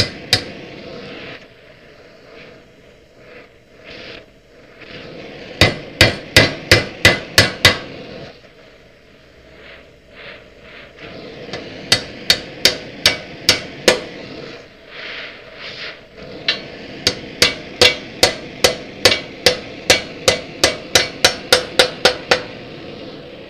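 Hammer striking steel in three quick runs of blows, about eight, then six, then a longer run of about seventeen, each blow ringing briefly, over a steady background rush.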